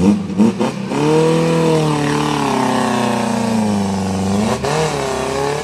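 Off-road 4x4 SUV's engine held at high revs under load, its pitch slowly sagging as it works, then dipping and rising again in a quick throttle blip near the end. A few sharp knocks come at the very start.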